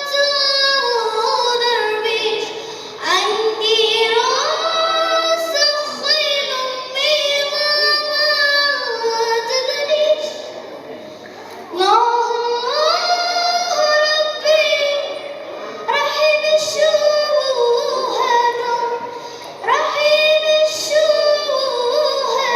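A young girl singing an Arabic nasheed solo, in long phrases that each open with a rising slide and settle into high held notes with vibrato, with short breaks for breath between phrases.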